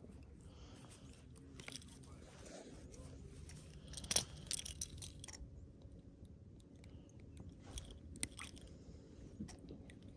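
Quiet handling noise as a rainbow trout is unhooked in a rubber-mesh landing net: scattered small clicks and crunchy rustles, busiest about four to five seconds in.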